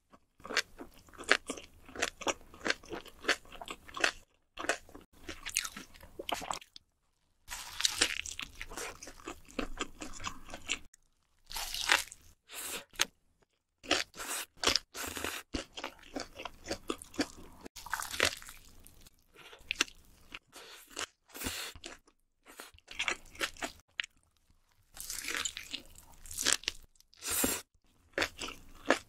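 Close-miked eating sounds of a burger: crisp crunching bites and wet chewing in quick clusters. They are broken a few times by short, abrupt silences.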